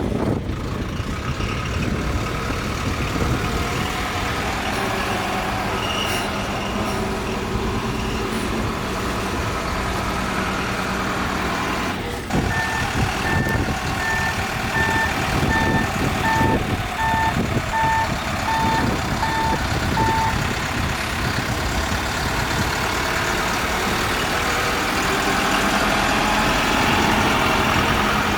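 LUGONG backhoe loader's diesel engine running steadily. Midway, its reversing alarm beeps at an even pace, a little under two beeps a second, for about seven seconds.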